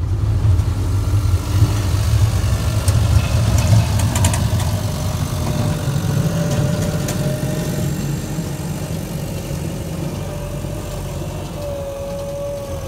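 Tracked snow groomer's engine running with a low, steady rumble. There are a few sharp clicks about three to four seconds in, and a thin whine above the rumble that grows clearer near the end.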